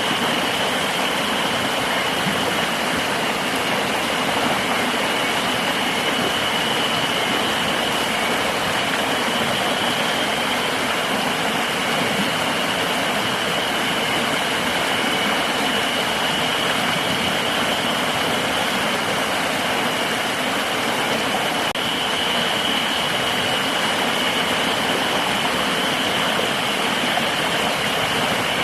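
River water rushing steadily, with a continuous high-pitched insect drone holding one pitch above it.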